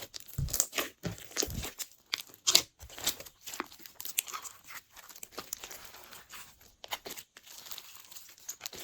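Hands squishing and stretching glossy slime, giving irregular sticky clicks, pops and crackles.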